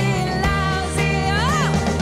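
Live rock band playing: a woman singing over electric guitar and drums, with a swooping pitch bend near the end.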